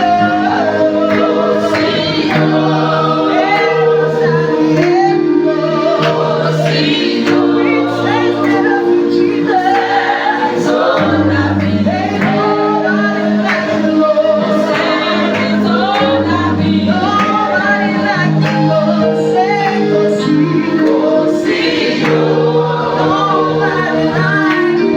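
Praise team singing a gospel worship song together, over instrumental backing with sustained chords and a bass line that moves every few seconds.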